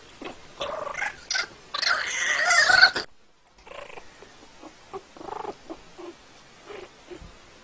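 A kitten and puppy play-fighting with animal cries: loud, noisy cat-like cries in the first three seconds, then softer short cries.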